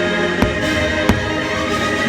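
Orchestral show music plays throughout. Two sharp firework bangs cut through it, about half a second in and again about a second in.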